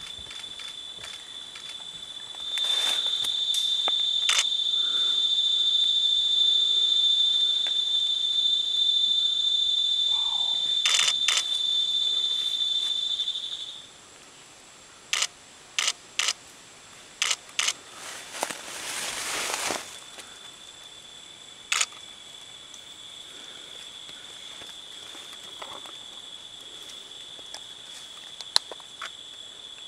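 A steady, high-pitched insect drone, loud for about eleven seconds, then cutting off suddenly and coming back fainter later. In the gap, a handful of sharp cracks and a brief rustle of leaves as a Bornean orangutan snaps and bends branches into its nest.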